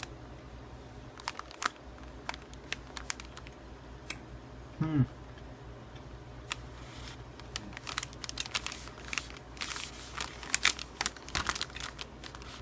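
Close-up chewing of a soft-baked chocolate chip protein cookie: many small wet mouth clicks and smacks, busiest in the second half. About five seconds in, a short low "mm" hum falls in pitch and is the loudest sound.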